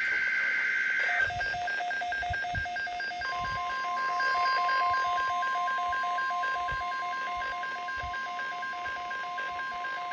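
NOAA Weather Radio alert tones ahead of a flash flood watch. A warbling two-tone SAME data burst ends about a second in, then rapid pulsing two-pitch beeps start. About three seconds in the steady long weather radio alert tone joins them.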